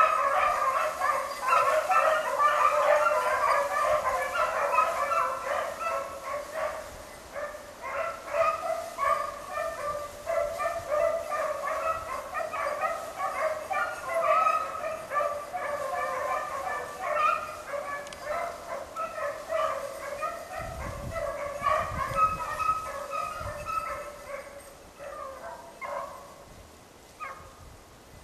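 A pack of beagles baying on a rabbit's trail, many voices overlapping, loud at first and growing steadily fainter as the pack moves away.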